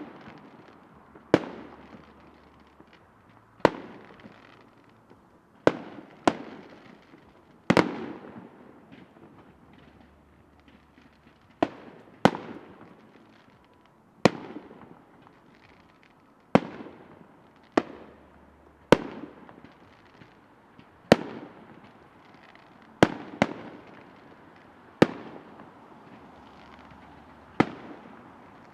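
Aerial fireworks shells bursting in a display: about sixteen sharp bangs, one every one to two seconds, each followed by a short fading echo.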